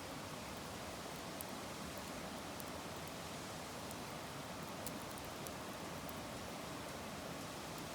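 Wood fire burning in a fire pit: a steady soft hiss with scattered small crackles and pops.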